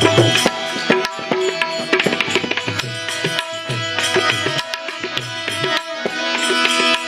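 Instrumental interlude of a Gujarati devotional bhajan: tabla playing a steady rhythm, its deep bass strokes bending in pitch, under a sustained melodic accompaniment.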